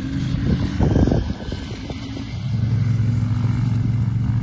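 Adventure motorcycles riding along a dirt track, their engines giving a steady low drone, with a louder, rougher stretch about a second in.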